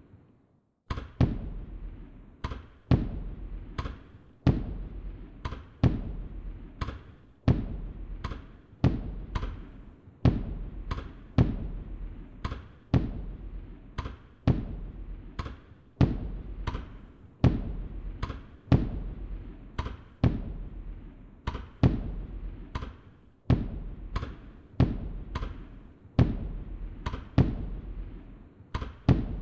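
Firework sound effect: a rapid, unbroken series of bangs, about two a second, each trailing off in a crackle.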